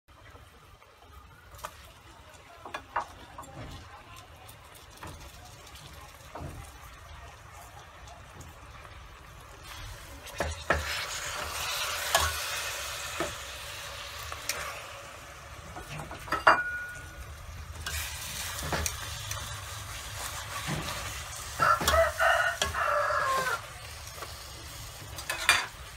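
Pig's ears and stomach sizzling as they are laid into hot, bubbling brown-sugar sauce in an aluminium pot, with tongs and a ladle clinking against the metal. A rooster crows loudly near the end.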